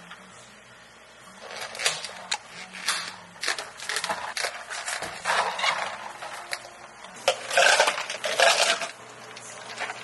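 Plastic takeaway cups being finished by hand: a string of sharp clicks and crinkling from clear dome lids pressed onto the iced-coffee cups, straws pushed in and paper sleeves slid on. The loudest crackling comes about seven to nine seconds in.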